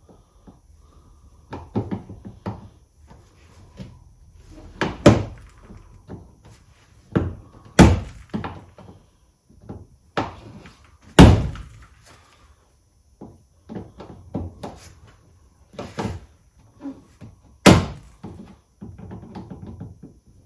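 Plastic trim rivets being prised out of a car's bumper undertray with a plastic trim removal tool: irregular clicks and scrapes, with five loud sharp knocks spaced a few seconds apart.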